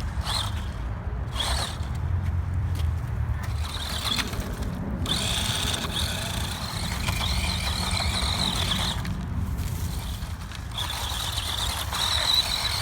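Fast Lane XPS Sand Shark RC car's electric motor whining at a high pitch as it is driven, in short spurts at first, then in longer runs about five seconds in and again near the end, over a steady low rumble.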